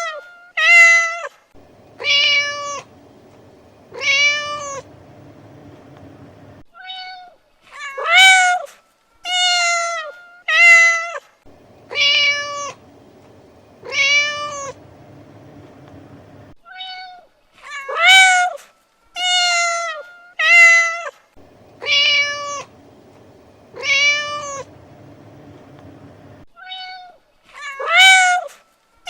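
Domestic cats meowing, a string of loud calls that rise and then fall in pitch, several every few seconds. The same sequence of meows repeats about every ten seconds, as a looped recording.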